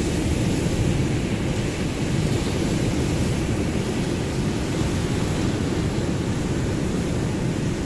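Ocean surf: a steady, low rush of waves with no distinct breaks standing out.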